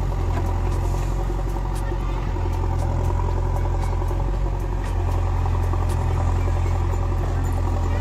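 JCB backhoe loader's diesel engine running steadily at high power while the machine pushes down with its backhoe arm to lever itself out of the mud it is stuck in.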